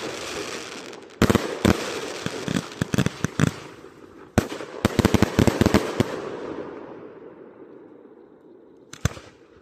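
Multi-shot firework cakes going off: rapid volleys of sharp bangs over a crackling hiss, one barrage about a second in and another about four seconds in. The crackle fades out after that, and a last short burst of bangs comes near the end.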